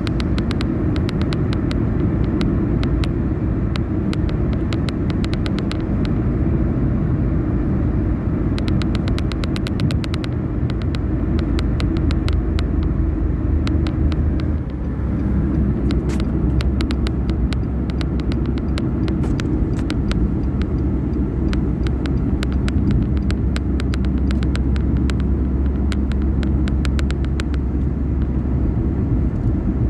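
A car driving at highway speed: steady low rumble of tyre and engine noise, with faint rapid clicks throughout.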